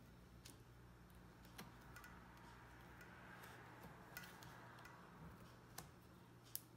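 Faint, scattered small clicks of a metal triangular strap ring being worked off a Nikon D750's strap lug by fingernail, about six ticks spread across several seconds, over a low steady hum.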